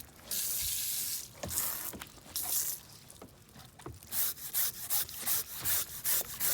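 A blade scraping a raw salmon fillet to clear off slime: irregular wet strokes at first, then quick, even strokes about three a second from about four seconds in.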